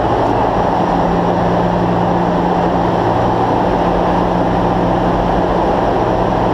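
Steady, loud jet aircraft cabin noise, the rush of engines and airflow inside a reduced-gravity research plane, with a constant low hum under it.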